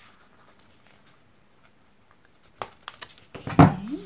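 Quiet handling of the paper envelope and a metal eyelet tool: a few light clicks and taps about two and a half seconds in, then a louder knock near the end, joined by a brief pitched sound that dips and rises.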